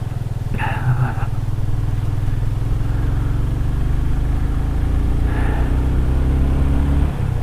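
Motorcycle engine running as the bike is ridden along. The engine note climbs slowly over several seconds, then drops just before the end.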